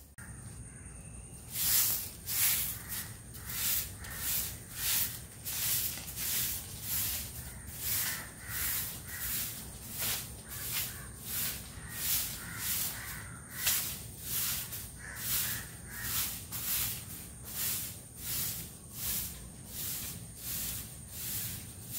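A broom sweeping a yard in steady, even strokes, a swish about every two-thirds of a second.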